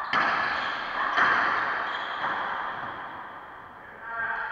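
Racquetball being hit: sharp smacks of racquet on ball and ball on the court walls, each trailing off in a long echo around the enclosed court. The loudest strikes come at the start and about a second in.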